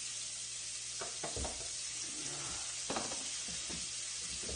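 Diced onions and garlic just added to a hot frying pan, sizzling steadily, with a few sharp light knocks scattered through.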